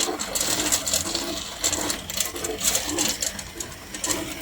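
Tube ice machine running with a busy, irregular clatter and rattle over a steady hiss.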